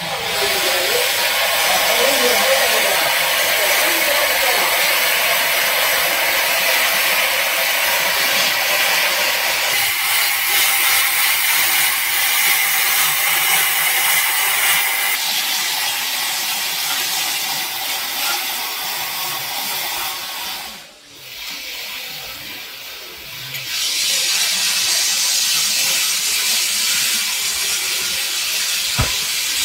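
A steady, loud hissing noise that changes in tone a few times and drops away briefly about two-thirds of the way through.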